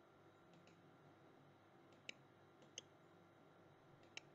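Four faint computer mouse clicks spread over a few seconds, against near silence.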